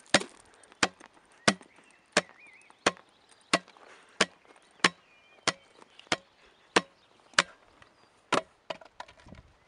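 Plastic fizzy-drink bottle struck again and again on a person's head: about thirteen sharp, even knocks, roughly three every two seconds, with a slightly longer gap near the end.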